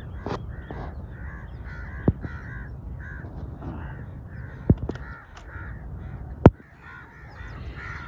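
Crows cawing over and over, a string of short calls. Three sharp clicks cut through: about two seconds in, just before five seconds, and the loudest at about six and a half seconds.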